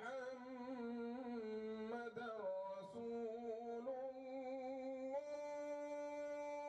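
Soft background music: a slow, wordless melody of held, wavering notes that step up and down about once a second, then settle on one long steady note about five seconds in.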